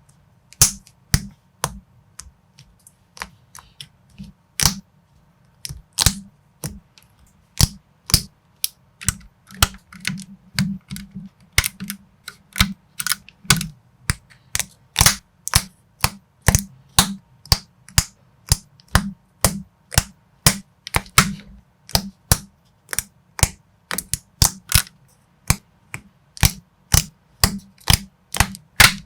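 Lego-compatible plastic bricks clicking and snapping together as a model is assembled by hand: a quick, irregular run of sharp clicks, about two or three a second.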